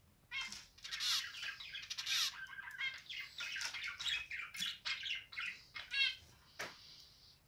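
Zebra finch singing: a rapid, unbroken string of varied buzzy, nasal notes and chirps lasting about six seconds, followed by a single short note near the end.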